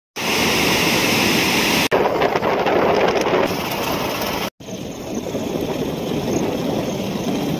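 Water rushing through a dam's sluice gates and over its spillway, a steady roar that cuts off abruptly about two seconds in. It is followed by other steady rushing outdoor noise, broken by another abrupt cut about halfway through.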